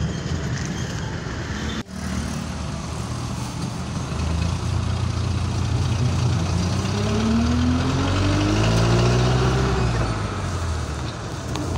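Engine and road noise heard from inside a moving motor vehicle, with a short break just before two seconds in. About halfway through, the engine's pitch climbs steadily as the vehicle speeds up, then holds.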